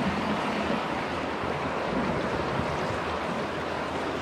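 Sea waves washing against a rocky shore, with wind on the microphone: a steady, even hiss.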